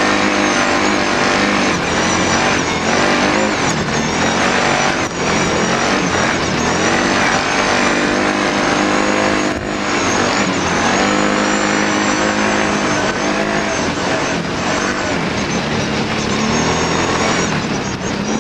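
Kawasaki Brute Force ATV engine running under way, its pitch rising and falling as the throttle is opened and eased. It runs over a steady rush of wind and tyre noise.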